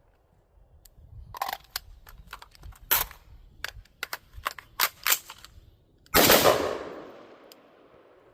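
Firearm shots: a run of sharp cracks and clicks of uneven loudness, then one louder shot about six seconds in whose report dies away over about a second.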